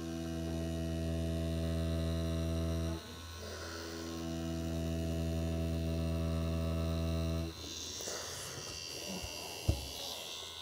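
Tattoo machine running with a steady hum while lining practice skin, stopping briefly about three seconds in and cutting off again about halfway through. Then comes a soft rustle of the skin being wiped, and one sharp tap near the end.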